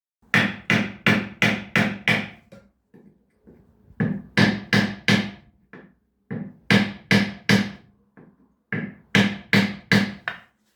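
Four quick runs of sharp knocks, five or six strokes in each, every stroke ringing briefly with a resonant, slightly pitched tone like a struck hollow object.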